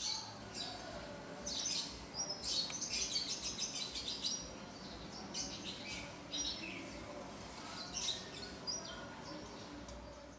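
Small birds chirping in the background: many short, high calls in quick succession, over a faint low hum.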